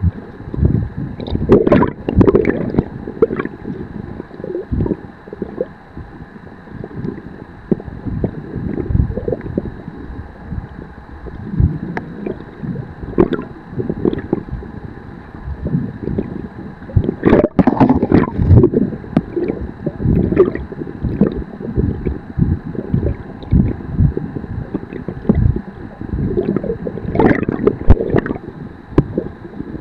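Muffled underwater noise: water sloshing and gurgling in irregular low surges with occasional knocks, as heard through an underwater camera's housing, over a faint steady high whine.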